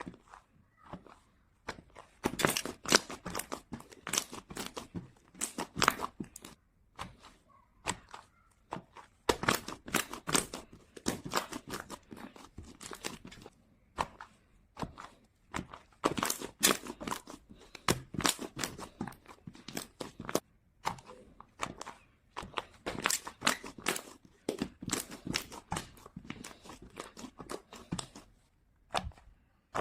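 Slime being squeezed, poked and kneaded by hand, giving dense runs of sticky crackling and popping clicks in four stretches with short pauses between.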